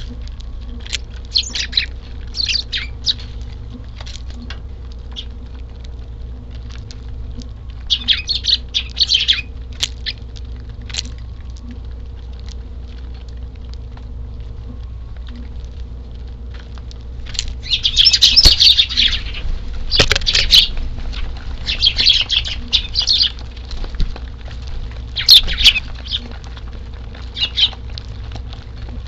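Eurasian tree sparrows chirping in scattered bursts: a few at the start, a cluster about eight seconds in, then busier and louder chirping through the second half, with a few sharp clicks among them. A steady low rumble runs underneath.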